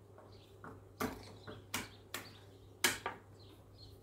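Kitchen knife chopping on a wooden cutting board: a handful of sharp knocks, the four loudest coming between about one and three seconds in, with lighter taps between them.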